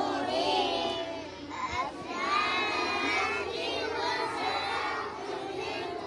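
Crowd of young children singing and shouting together, many voices at once.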